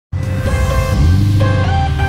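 Intro background music: held melody notes that slide between pitches over a steady low bass.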